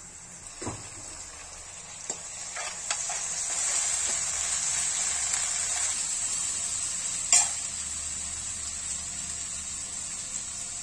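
Onions and ginger-garlic paste sizzling in hot oil in a kadai while stirred with a steel ladle; the sizzle grows a little louder after about three seconds. A few light taps of the ladle early on, and one sharp knock of the ladle on the pan about seven seconds in.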